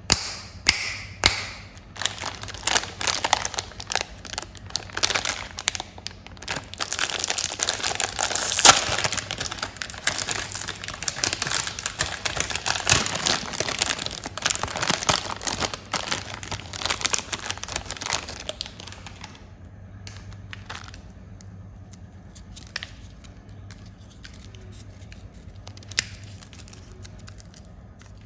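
Plastic candy wrappers crinkling and tearing as they are opened, dense and busy for most of the time, then thinning to occasional faint rustles near the end. A low steady hum sits underneath.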